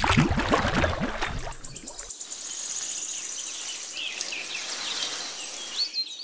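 Water sloshing and splashing for about the first two seconds as a small plastic cup is scooped through a miniature pond. Then a softer steady noise with insects and birds chirping high.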